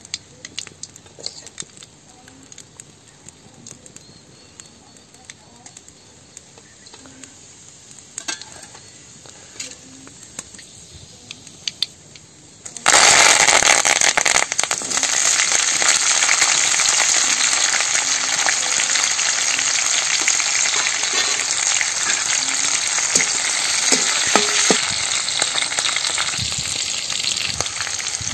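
Hot oil in a kadai: faint scattered crackles at first, then, about 13 seconds in, a sudden loud sizzle as green chillies and curry leaves go into the oil, which keeps sizzling steadily. This is the tempering (tadka) stage of the cooking.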